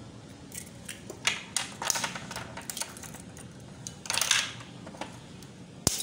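Eggs being cracked against the rim of a glass bowl and broken open: a series of sharp taps and shell cracks, with a short crackle about four seconds in and a sharp click near the end.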